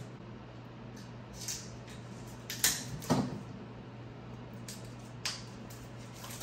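Plastic pull-tab seal wrap being torn off an iPad Pro box: a few short rips and crinkles, the loudest about two and a half to three seconds in, over a faint steady low hum.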